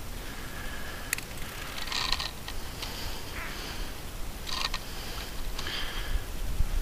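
Soft rubbing and rustling in several short patches, with one sharp click about a second in, as fishing line is drawn in hand over hand through an ice hole.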